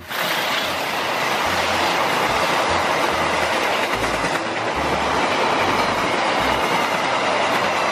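Passenger train coaches rolling past close by: a loud, steady noise of steel wheels on the rails, with irregular low thumps underneath.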